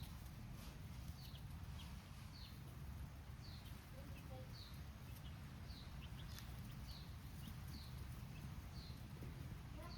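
Baby chicks cheeping: a steady series of short, high peeps that fall in pitch, about one a second, over a low steady rumble.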